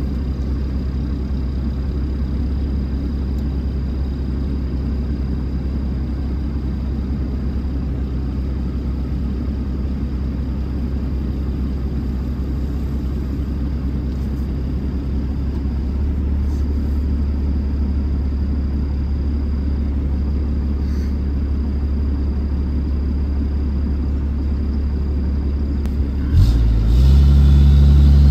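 Truck engine running steadily with a low rumble. About two seconds before the end there is a click, and the engine sound becomes much louder and fuller.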